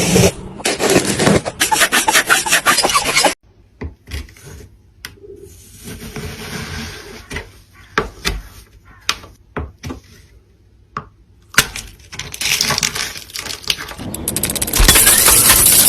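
Rapid, rough rasping and scraping strokes that stop abruptly, followed by a quieter stretch of scattered clicks and taps. Loud, dense scraping then returns and grows louder near the end.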